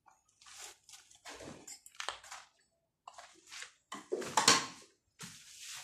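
Footsteps crunching on grit and rubble over a concrete floor: a string of irregular gritty scuffs, the loudest about four and a half seconds in.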